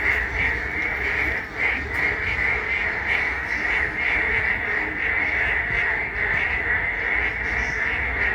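A dense chorus of frogs calling steadily from the water, the calls overlapping into an unbroken trill, with a low rumble underneath.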